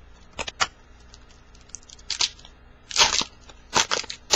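Foil wrapper of a 2010 Bowman baseball card pack crinkling and tearing as it is opened, in a few short sharp bursts, the longest about three seconds in.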